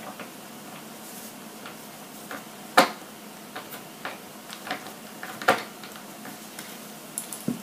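Small hand tools and metal parts clicking and tapping as locking nuts are fitted to the metal leaf-spring brackets with a nut tool and a screwdriver. Scattered light ticks, with two sharper clacks about three and five and a half seconds in.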